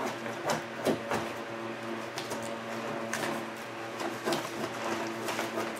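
Vinyl door wrap being pressed and smoothed onto a car door with a hand squeegee: irregular short scraping and rubbing strokes over a steady low hum.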